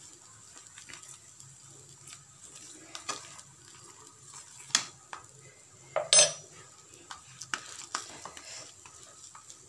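Metal spoon scraping and clinking against a pan while spreading butter over a parotha: scattered light scrapes and taps, with two louder clinks about five and six seconds in.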